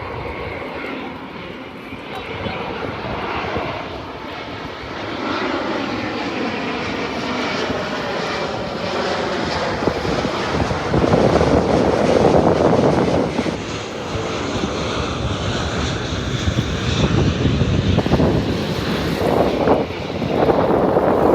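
Airliner arriving to land, its engine noise building up and sweeping in pitch as it passes, loudest about halfway through and again near the end.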